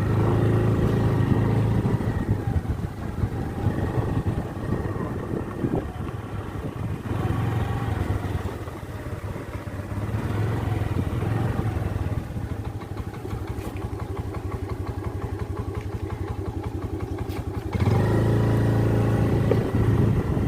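Engine of a small road vehicle running steadily as it is driven along, its level dipping and rising a few times and growing louder near the end.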